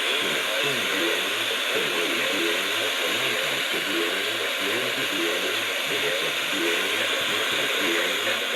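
A radio broadcast voice reading an Emergency Alert System test message, nearly buried under steady static hiss so that the words can't be made out.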